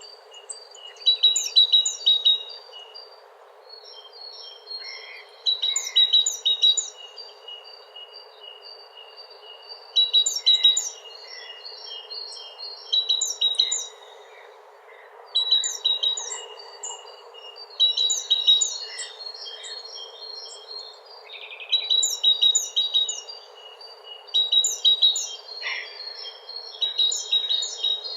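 Songbird singing short, high-pitched phrases of quick notes, about one every two to three seconds, with fainter calls between, over a faint steady background hiss.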